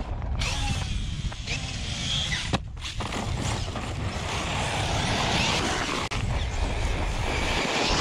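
Arrma Talion 6S RC truck being driven hard: its brushless electric motor whines up and down with the throttle over the noise of its tyres churning hard-packed dirt and gravel.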